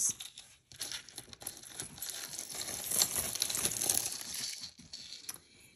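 Packaging crinkling and rustling as it is handled, building to its loudest about halfway through and fading near the end.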